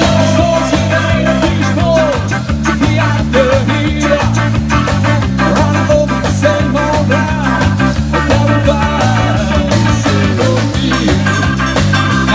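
Live rock band playing an instrumental passage with a ska-reggae feel: a repeating bass line, choppy off-beat guitar strokes and a melody line over it.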